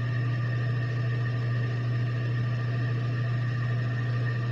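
Benchtop bandsaw running with a steady motor hum while a small piece of wood is worked at the blade.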